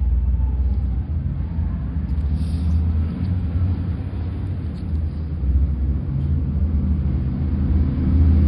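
A low, steady rumbling hum of a running motor, getting a little louder near the end.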